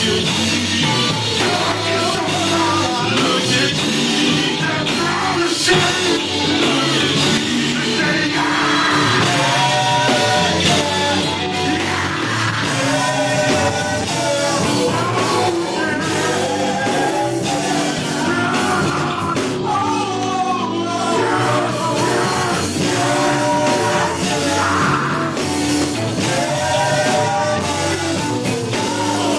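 Gospel group singing over full band backing, a loud, steady up-tempo song with vocal lines rising and falling above the instruments.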